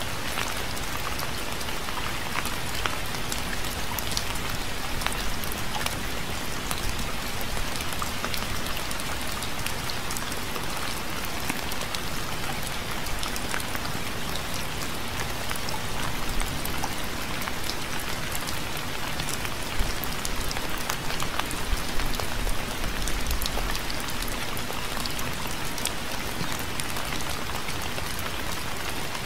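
Steady rain falling, a dense hiss with many individual drops ticking on a surface, and a few heavier gusts of low rumble about two-thirds of the way through.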